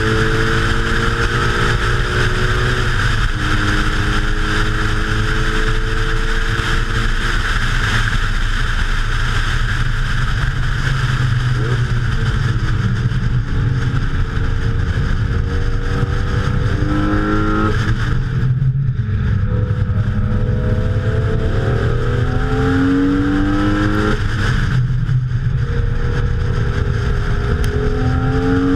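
Car engine under hard acceleration on a track lap. Its pitch climbs through each gear and drops at each upshift, with a brief lift off the throttle about two-thirds of the way through. Steady wind and road noise runs underneath.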